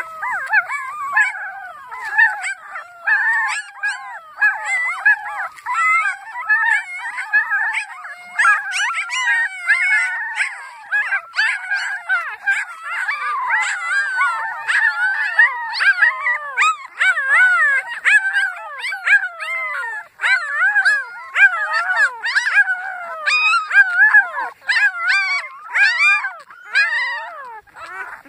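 A litter of young puppies howling and whining together: several high, wavering cries overlapping without a break.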